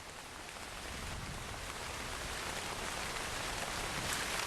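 Heavy tropical rain pouring steadily onto the forest, a dense even hiss that swells slightly louder over the few seconds.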